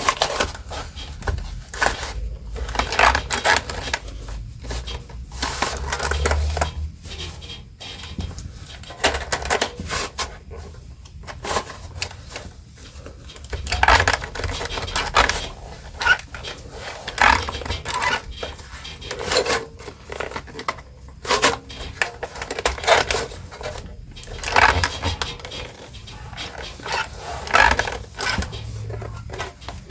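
Denim being hand-stitched: thread drawn through the thick cloth and the fabric handled, in irregular scratchy strokes every second or two.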